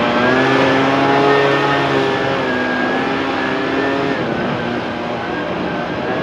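Handheld two-stroke gas leaf blower running at high speed. Its engine note wavers slightly, dipping about four seconds in.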